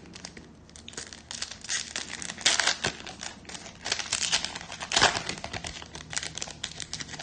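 A trading card pack's wrapper being torn open and crinkled by hand, with irregular rustling that is loudest twice, about two and a half and five seconds in.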